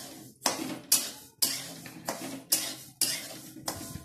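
Spatula scraping and stirring sesame seeds as they dry-roast in a large steel kadhai, a rhythmic scrape of seeds against the metal pan about twice a second.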